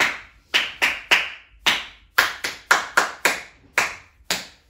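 Hand claps tapping out short rhythm patterns, about a dozen sharp claps in uneven groups, in a four-beat rhythm call-and-response exercise.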